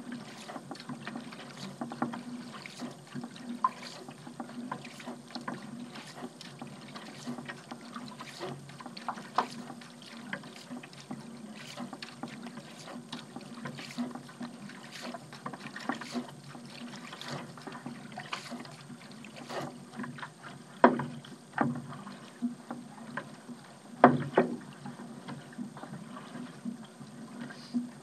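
Paddle strokes through seawater: repeated dips and splashes with dripping water. Two sharper, louder knocks or splashes stand out about three seconds apart, roughly three-quarters of the way through.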